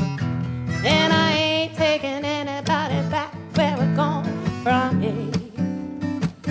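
Soundtrack music: a song with a voice singing long notes with vibrato over plucked acoustic guitar.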